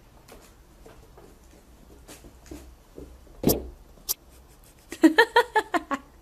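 Light scuffling and knocks of a cat moving in a plastic basin on a hard floor, then a loud hollow knock about three and a half seconds in as the basin tips over upside down, with a smaller knock just after. A quick run of short voice sounds near the end.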